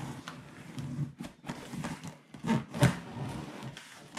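A small knife slitting the packing tape along a cardboard box's seam: irregular scrapes and rubs on the cardboard, with two louder scrapes a little after two and a half seconds in.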